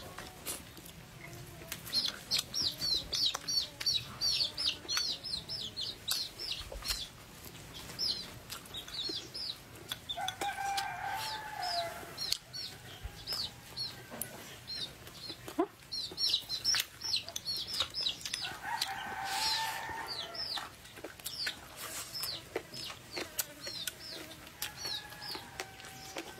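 Chicks peeping, a fast run of short, high, falling notes that keeps going. Twice, about ten and nineteen seconds in, an adult chicken gives a longer, lower call lasting about two seconds.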